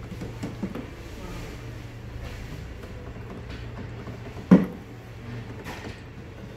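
Plastic ink bottles and their tubes on a DTG printer's ink holder being handled by hand, with faint small clicks and one sharp knock about four and a half seconds in, over a steady low hum.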